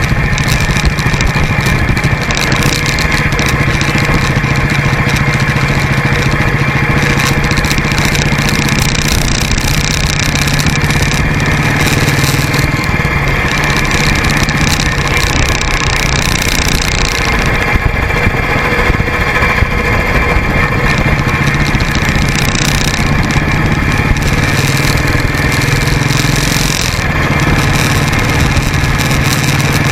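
Motorcycle engine running steadily while riding at cruising speed, with a continuous rush of wind on the microphone and road noise.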